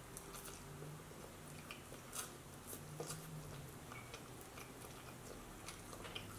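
Faint sounds of a child slurping and chewing noodles, with a few soft clicks.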